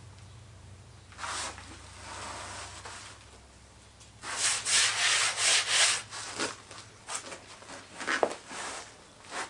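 A hand rubbing and sweeping loose foundry greensand across a flat moulding board, loudest in a quick run of about six strokes from around four seconds in. Lighter scraping follows, with a single knock near the end as a metal moulding flask is set down on the board.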